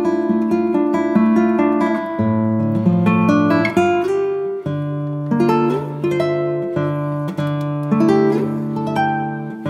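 Background music: an acoustic guitar picking and strumming chords.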